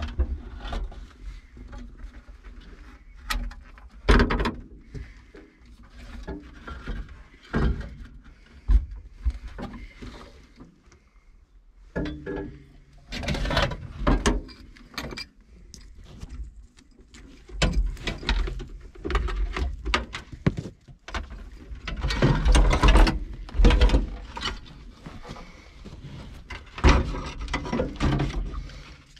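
Irregular clunks, clicks and rustling as a Motorola TM525A car radio's perforated metal case and its loose wiring are handled and pulled out from under a dashboard, over a low rumble.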